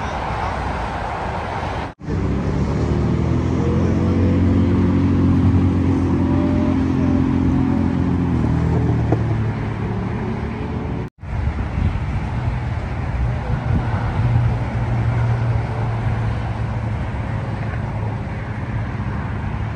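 Road traffic on a busy freeway: a steady rush of passing vehicles with a low, steady hum, broken by two brief dropouts, one about two seconds in and one about eleven seconds in.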